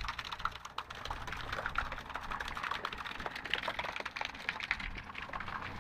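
Small park fountain's thin water stream splashing, a faint, dense, irregular patter of light clicks.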